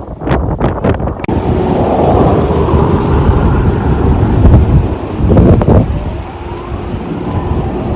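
Outdoor rumble with wind buffeting the microphone. A steady high hiss begins sharply about a second in, and the rumble swells briefly a little past the middle.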